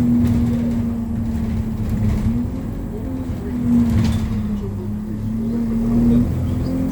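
Interior of an ADL Enviro200 single-deck bus under way: engine and drivetrain drone with a steady whine that wavers slightly in pitch, over a low rumble.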